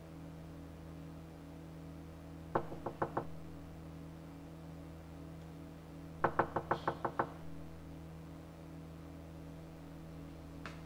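Knuckles knocking on a door: four knocks, then a few seconds later a quicker run of about seven knocks, over a steady low hum.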